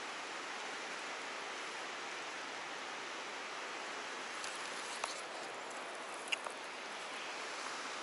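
Steady rushing of a fast stream flowing through a narrow rock channel, with a few short sharp clicks about five and six and a half seconds in.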